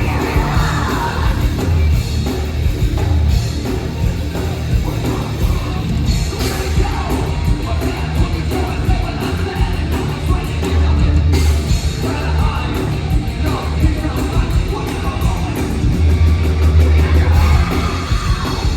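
Rock band playing a song live, loud and unbroken, with heavy bass and yelled, sung vocals over the band.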